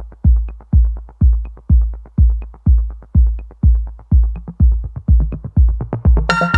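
Electronic background music with a steady drum-machine kick about twice a second. A bright synth chord comes in near the end.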